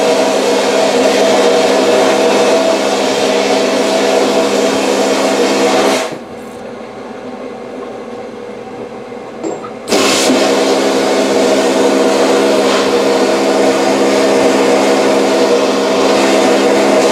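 Vapor blasting gun spraying water-and-abrasive slurry onto brake caliper slide pins inside a blast cabinet: a loud, steady hissing rush with a steady tone running through it. It stops about six seconds in, leaving a quieter steady noise, and starts again about four seconds later.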